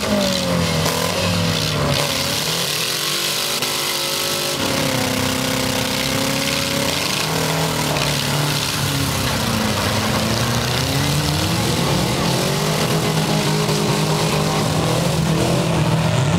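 Several front-wheel-drive demolition derby cars' engines revving at once, their pitches repeatedly rising and falling over a constant wash of noise.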